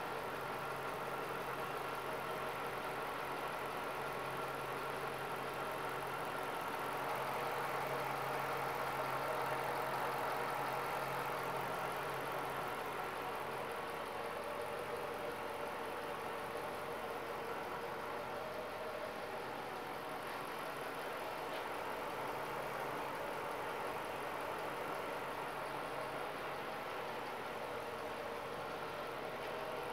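2007 Dodge Charger SRT-8's 6.1-litre Hemi V8 idling steadily, heard from over the open engine bay, with an Airaid throttle body spacer fitted to its intake.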